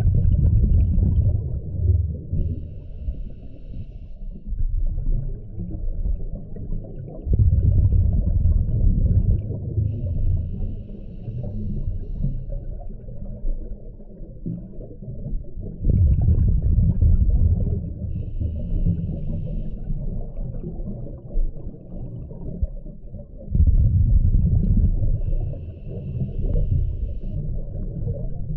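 Scuba diver breathing through a regulator, heard underwater: a low rumble of exhaled bubbles about every eight seconds, four times, each followed by a thin high hiss as the diver breathes in.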